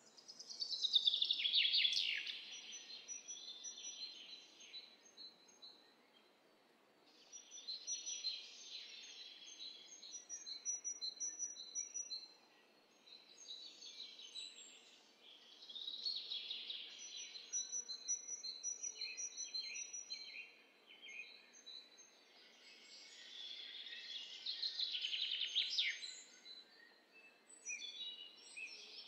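Onions frying in hot oil in a pot, a crackling sizzle that swells and fades every few seconds, loudest about a second in. Short, high birds' chirps repeat over it.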